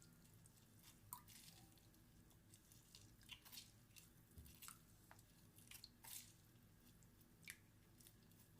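Faint squishing and dripping of half a lemon being squeezed by hand into a clove infusion, with a few light scattered clicks.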